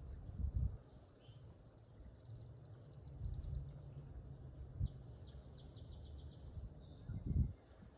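Outdoor nature ambience: rapid, high chirping trills from small animals in two bouts, over a steady low rumble with a couple of louder low thumps near the start and near the end.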